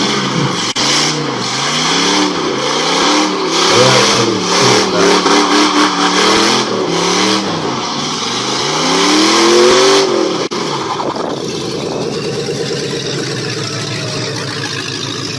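Loud aftermarket exhaust on a squatted pickup truck, the engine revved repeatedly so that its note rises and falls in swells. From about ten seconds in, it settles into a steadier, lower rumble.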